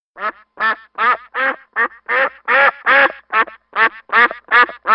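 A duck quacking: about a dozen short quacks in quick succession, roughly two or three a second.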